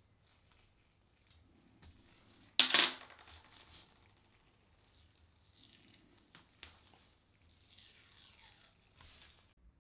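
Masking tape being cut with a craft knife and peeled off the painted cast-iron body of a Stanley 75 bullnose plane. There is one sharp loud rip about two and a half seconds in and a softer, drawn-out peeling rustle near the end, with light clicks and scrapes between.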